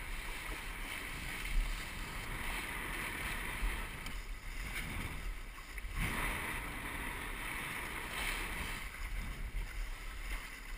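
Wind buffeting the microphone and water rushing and hissing past the hull of a Musto Skiff sailing dinghy under way, with a single thump about six seconds in.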